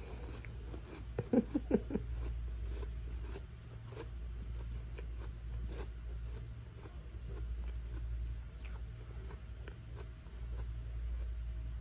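Cat crunching and chewing a cookie: a run of small, crisp crunches, loudest about a second and a half in.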